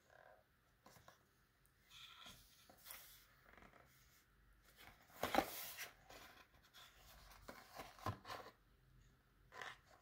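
Cardboard box of a paring knife set handled and turned over in the hands: faint scattered rustles and scrapes of fingers sliding on the cardboard, the loudest a little past five seconds in, with a few lighter ones near the end.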